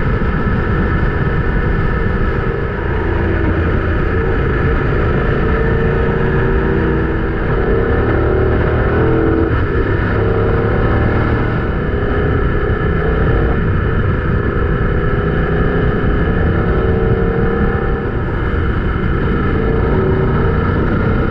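BMW GS adventure motorcycle's boxer-twin engine running at steady road speed, its note rising and falling slightly through the bends. Heavy wind rush on the helmet-mounted microphone runs under it.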